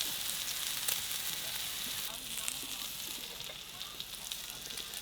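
Food sizzling as it cooks: a steady hiss with many small pops and crackles.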